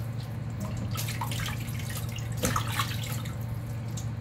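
Raw chicken thighs being rubbed and squeezed by hand in a steel bowl of vinegar and water, with irregular small splashes and drips, over a steady low hum.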